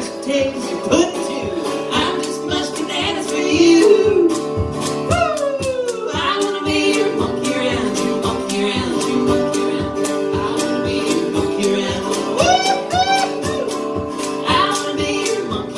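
Live acoustic music: a strummed acoustic guitar under a high lead melody that slides and wavers in pitch, with a long downward slide about five seconds in.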